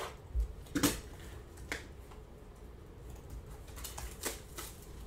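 Hands opening and handling trading-card boxes and packs on a table with a box cutter: scattered light clicks, taps and scrapes of cardboard and plastic, the sharpest a knock about a second in.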